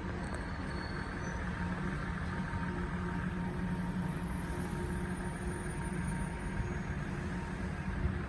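Steady low hum and rumble of an idling vehicle, with a faint steady tone above it.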